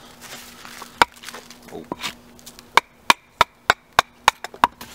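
A wooden baton knocking on the spine of an Ontario Knife Blackbird SK5 fixed-blade knife, driving it down through a small stick of wood to split it. There are a couple of single knocks, then a quick run of about seven strikes at roughly three a second in the second half.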